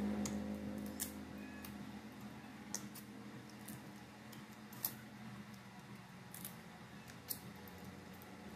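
Small native crab (kasag) shells cracking and crunching as they are eaten: a handful of sharp cracks a second or two apart.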